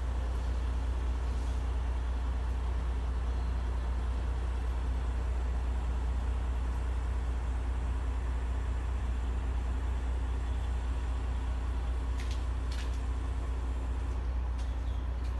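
Crane truck's diesel engine running steadily, a low even drone, with two brief clicks late on.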